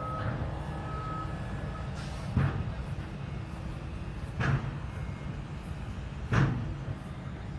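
Steady low outdoor rumble, like engines idling or wind on the microphone, broken three times by short sharp knocks about two seconds apart.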